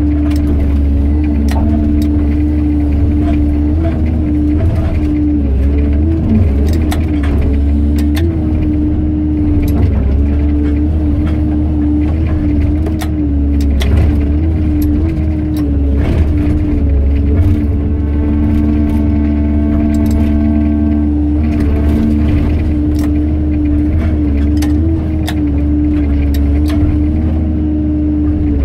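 Excavator's diesel engine and hydraulics running steadily under load with a constant hum, as its hydraulic pulverizer crushes reinforced concrete. Many sharp cracks and snaps of breaking concrete are scattered throughout.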